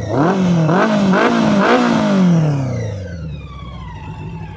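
Motorcycle engine revved through a slip-on muffler: the throttle is blipped about four times in quick succession, each rev shooting up and falling back, then the revs drop away and it settles to a steady idle near the end.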